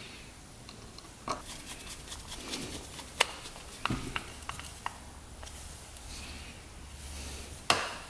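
Small carburetor parts being handled and fitted by hand during reassembly of the accelerator pump: light clicks, taps and rubbing of metal and plastic pieces. There are a few sharp clicks, the loudest near the end.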